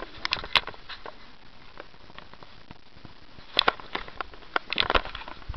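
Scattered sharp clicks and short rustles of a handheld camera being handled and moved about, in two clusters: just after the start and again from about three and a half to five seconds in.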